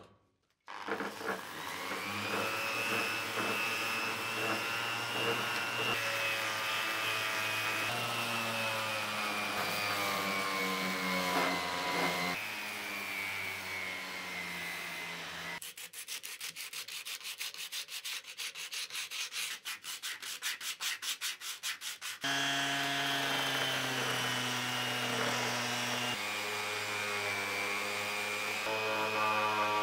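Electric power tool running while sanding, its motor holding a steady hum under the rasp of abrasive, with the pitch sagging and recovering as it is pressed into the work. Midway the hum drops away for several seconds of rapid, evenly pulsing scraping, about seven strokes a second, before the motor sanding resumes.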